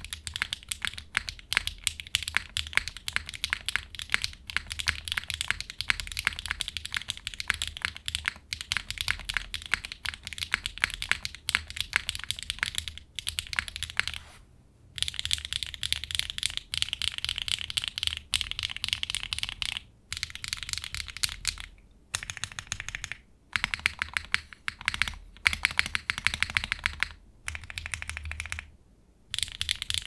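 Steady fast typing on a SingaKBD Unikorn mechanical keyboard with factory-lubed HMX Cheese linear switches on an aluminium plate under GMK keycaps: a dense run of higher-pitched clacking keystrokes. The typing breaks off briefly about halfway through, and stops for short moments more often in the second half.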